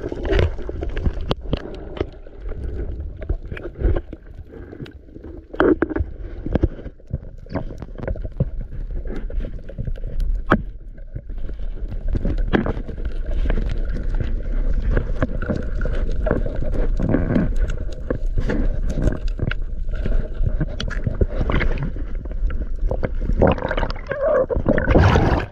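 Sea water sloshing and splashing, with many scattered knocks and a steady low rumble underneath; a louder stretch of splashing comes near the end.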